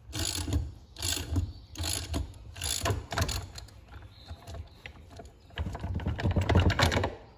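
Ratchet clicking as it turns down the forcing screw of a pulley puller, drawing the pulley off a power steering pump: short strokes about once a second, then a longer, louder run of clicks near the end.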